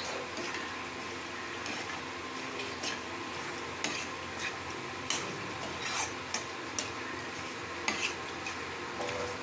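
Steel spoon scraping and clinking against a metal kadai as chicken pieces in masala are stirred and sautéed, with irregular knocks about once a second over a steady frying sizzle.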